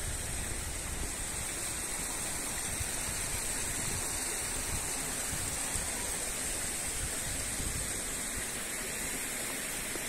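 Steady rushing of running water from a mountain spring stream, an even noise with no breaks.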